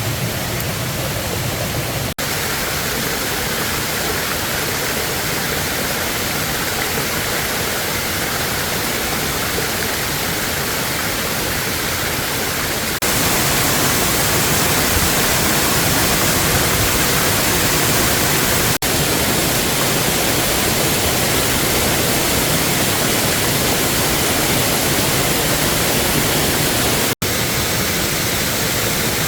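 Waterfall rushing steadily, a loud even roar of falling water. It breaks off for an instant three times and gets a little louder about halfway through.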